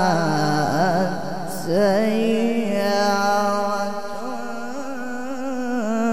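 A man's voice chanting Quran recitation in the melodic mujawwad style. He holds one long vowel, bending it through wavering ornamental turns in the first seconds, then settles on a steady held note.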